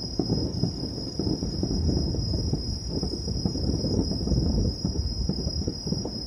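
Insects trilling in one steady, unbroken high tone, over a continuous low rumbling noise that is the loudest part.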